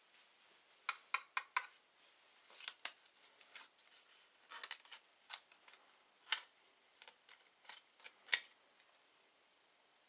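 Sharp clicks and taps of a pry tool and fingertips working a thin metal RAM shield cover loose from a laptop's motherboard. A quick run of four clicks comes about a second in, then scattered single clicks follow, the loudest near the end, and they stop about a second before the end.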